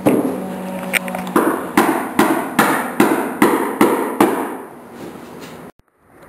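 Hammer blows in a steady run of about ten sharp strikes, roughly two and a half a second, which die away after about four seconds.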